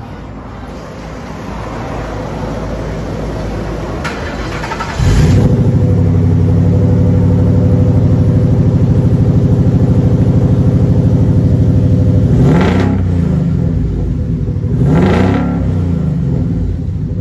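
Exhaust of a 1952 Ford through 3-inch Borla Pro XS mufflers and 3-inch custom piping. It comes up loud and steady about five seconds in, then gives two quick blips of the throttle near the end.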